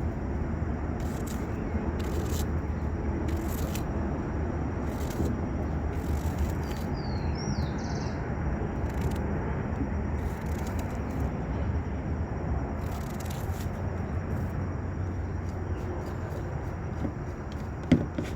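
Steady low outdoor noise with faint irregular ticks and a couple of short bird chirps. A sharp click comes near the end.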